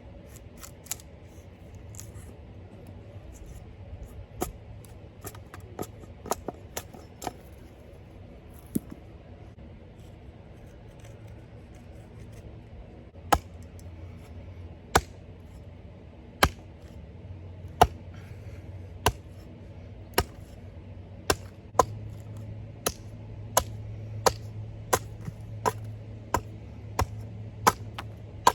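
Wood being chopped with an edged hand tool. A few scattered sharp blows come first. From about halfway there is a steady run of strikes, at first about one a second and then quickening to nearly two a second, over a low steady hum.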